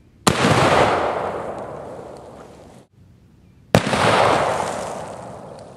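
Two .45-70 rifle shots from a single-shot H&R Handi-Rifle, about three and a half seconds apart. Each is a sharp report followed by a long rolling echo that fades over about two and a half seconds. The first echo cuts off abruptly just before the second shot.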